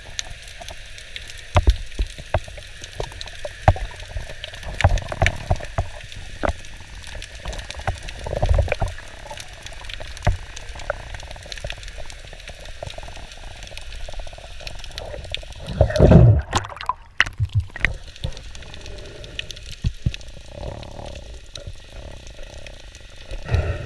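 Water and bubble sounds recorded underwater: scattered sharp clicks and crackles over a steady hiss, with a few louder gushes. The loudest gush comes about sixteen seconds in.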